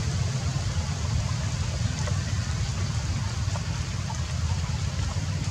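Rainwater dripping in wet forest after rain: a steady hiss with a few faint drip ticks, over a steady low rumble.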